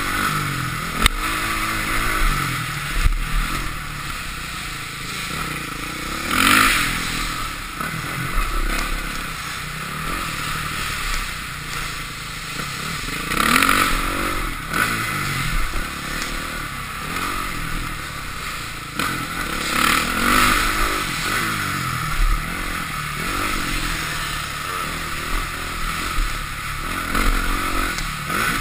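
2005 Honda CRF450R's single-cylinder four-stroke engine being ridden hard, revving up and backing off over and over with louder surges every several seconds. A few sharp knocks come through early on.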